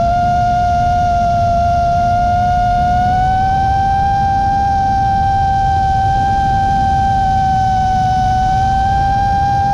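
5-inch FPV quadcopter's Xilo 2207 1750KV brushless motors on 6S whining at a steady throttle, the pitch stepping up slightly about three seconds in, over a low rushing noise.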